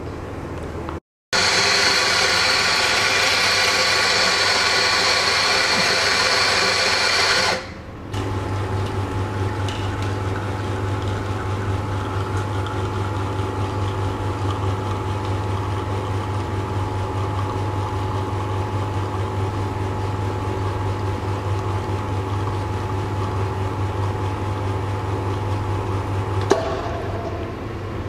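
A coffee grinder runs for about six seconds. Then the espresso machine's pump hums steadily while an espresso shot pours, and it stops shortly before the end.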